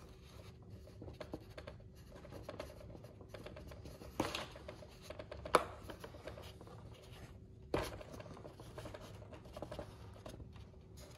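Small scratching and rubbing of a thin steel pushrod being worked against a plastic servo arm and foam wing, trying to push its Z-bend through a tight hole in the arm. Three sharp clicks break in, the loudest about midway.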